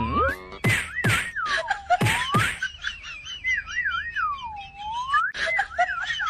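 A whistled tune repeating the same phrase every second or two, a quick warble that dips low and glides back up. Quick falling cartoon swoops and clicks cut in over it, twice in the first few seconds and again near the end.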